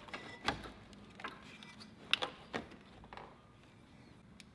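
Faint scattered clicks and knocks, about five of them, as a cone air filter is handled and pushed onto a car's intake pipe.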